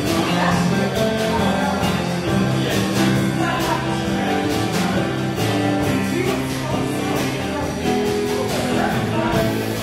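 Live band playing amplified music on electric guitars, electric bass and a drum kit, with a steady drum beat under a moving bass line.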